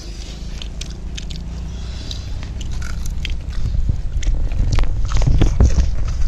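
Tin-roasted tandoori chicken being torn apart by hand and chewed, the crisp skin and meat crackling in many short clicks. A low rumble grows louder in the second half.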